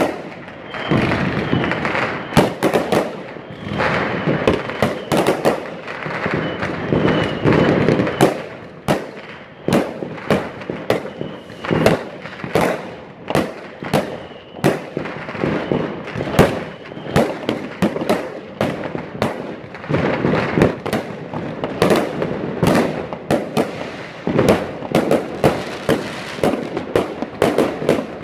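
Fireworks going off without pause: dozens of sharp bangs from bursting aerial shells and firecrackers, one after another, over a continuous crackling din.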